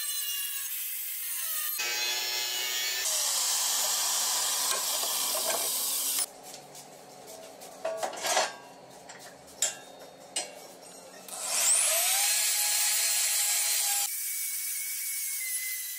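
Angle grinder cutting through sheet steel, loud and steady for about the first six seconds. Then a quieter stretch with a few sharp scrapes and knocks from the steel blade being handled. About twelve seconds in, an electric die grinder spins up with a rising whine and runs steadily as it grinds the blade's cut edge.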